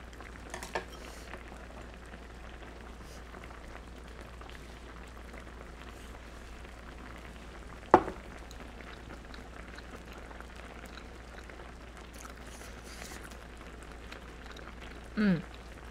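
Budae jjigae simmering in an electric hot pot, a steady bubbling hiss. A sharp click about halfway through, and a short hummed sound near the end.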